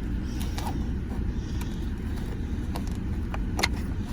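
Steady low background rumble with a few light clicks and taps of small parts and tools being handled, the sharpest about three and a half seconds in.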